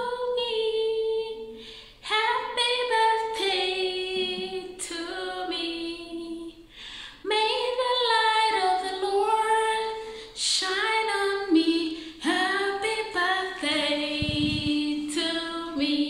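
A woman singing unaccompanied in several long phrases, with held and sliding notes and short breaks between phrases.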